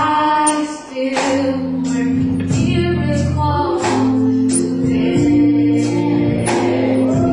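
Gospel singing with instrumental accompaniment: voices holding sustained notes over a steady bass line, with occasional percussive strikes.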